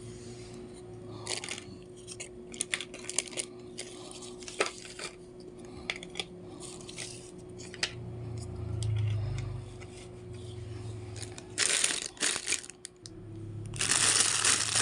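Packaging being handled while unboxing: crinkling and tearing with many scattered small clicks and taps, then two louder spells of rustling and tearing near the end. A faint steady tone runs underneath for most of it.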